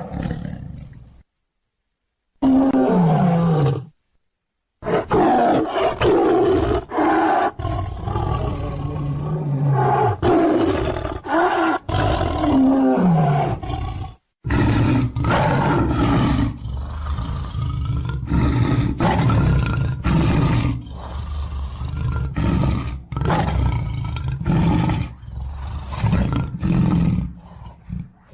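Tiger roaring again and again, a string of spliced roar recordings with short silent gaps about a second in, around four seconds and around fourteen seconds. Several roars slide down in pitch.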